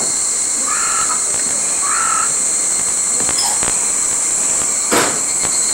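A crow cawing twice, about a second apart, over a steady high-pitched drone of insects; a single sharp knock near the end.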